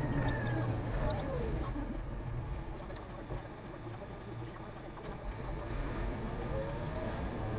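Concrete mixer truck's diesel engine running on the road. Its note falls about a second in and climbs again near the end, as the truck slows and picks up speed.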